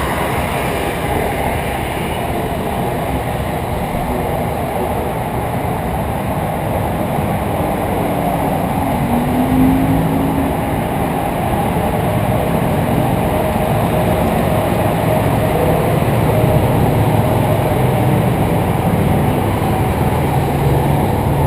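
Car driving: steady engine and road noise heard from inside the car.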